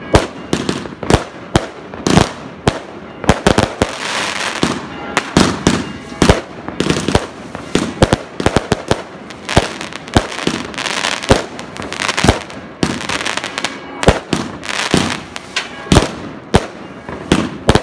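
Aerial fireworks display: a fast, irregular run of loud bangs, two or three a second, from shells bursting overhead, with crackling between the reports.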